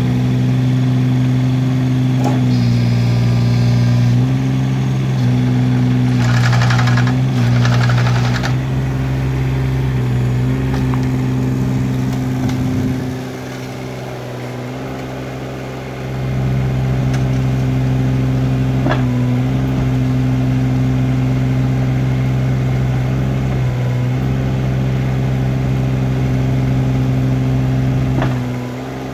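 Kubota KX016-4 mini excavator's three-cylinder diesel engine running at working speed, its note stepping up and down as the hydraulics are worked. About halfway through it drops to a lower, quieter speed for about three seconds, then comes back up; there is a couple of seconds of hiss about six seconds in.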